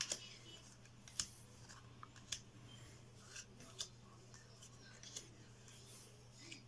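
Yu-Gi-Oh trading cards being flicked one by one off a hand-held stack, each making a sharp papery snap, about five times over a faint steady hum.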